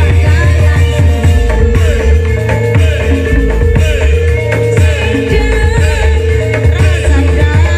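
Loud Indramayu reog music: a driving drum-and-bass pulse under a wavering melody, with one note held steady throughout.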